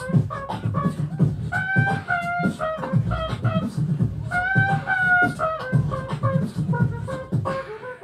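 Two beatboxers jamming into microphones: a steady rhythm of vocal kick-drum and snare sounds under phrases of short, pitched melodic notes made with the mouth.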